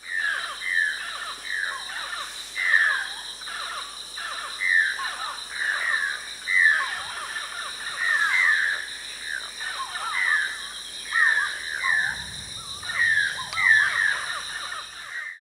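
Rainforest ambience: a bird calling over and over in short falling notes, about once a second, over a steady high-pitched insect drone.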